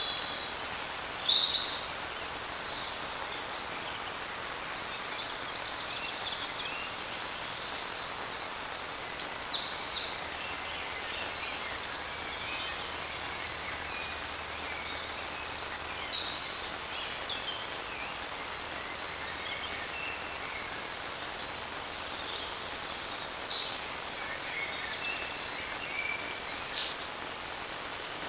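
Scattered woodland birdsong, many short chirps and calls, over the steady hiss of a trail camera's built-in microphone, with one louder, brief call about a second in.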